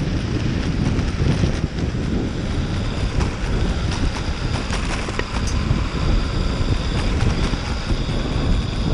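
Electric mountainboard cruising on a concrete path: the knobby pneumatic tyres rumble steadily, with a faint high whine from the twin motors and E-Toxx helical gear drives, wind on the microphone, and a few light ticks about halfway through.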